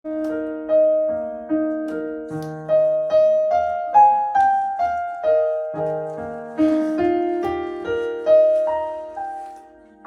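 Piano or electric keyboard playing the slow introduction to a hymn, with chords and a melody line. The notes are struck and then die away, and the playing fades out near the end.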